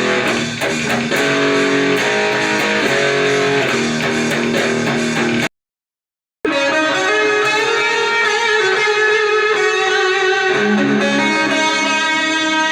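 Electric guitar played on a clean setting through a guitar amp with a swapped-in speaker: rhythmic strummed chords that cut off suddenly about five and a half seconds in, then after a second of silence, held ringing notes.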